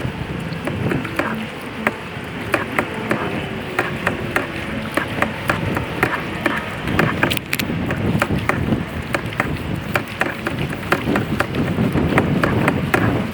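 Kayak paddling on water: a steady rush of water with many small irregular splashes, drips and knocks from the paddle and hull.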